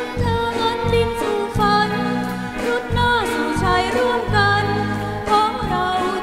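A song playing: a solo singing voice carrying a melody over a bass line and instrumental accompaniment.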